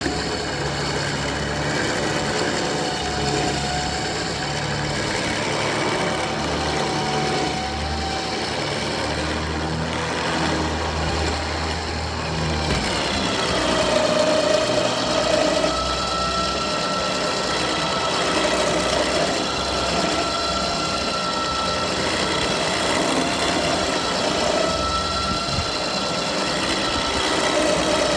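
Old red tractor's engine running at low speed as the tractor creeps forward to be loaded onto a flatbed trailer. About halfway through the engine note changes and gets a little louder.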